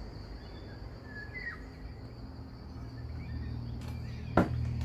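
Outdoor background: a steady high insect drone, a couple of short bird chirps and a low hum. One sharp knock about four and a half seconds in is the loudest sound.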